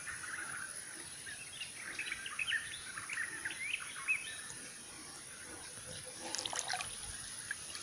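Small songbirds chirping in a quick run of short, rising notes for about three seconds, over the faint steady rush of a stream. A few brief splashy ticks of water come near the end.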